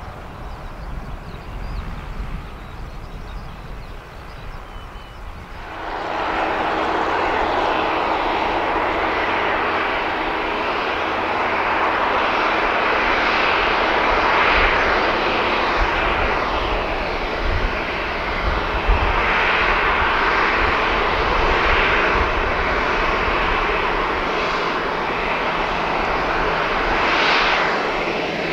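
Boeing C-40C's twin CFM56-7B turbofan jet engines running at taxi power as the aircraft taxis. There is a low rumble at first, and then the engine noise steps up sharply about six seconds in and stays loud and steady, with a constant low hum under it.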